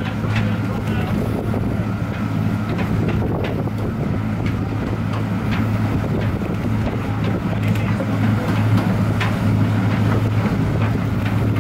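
Cruising catamaran's diesel engines running steadily as a low, even hum under load, its propellers churning the water while it manoeuvres onto the dock, with some wind on the microphone.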